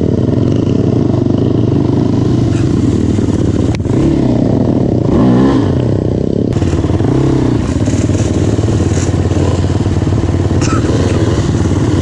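Can-Am DS 450 quad's single-cylinder four-stroke engine running under way, heard close from the machine itself, with the revs rising and falling a few times around the middle.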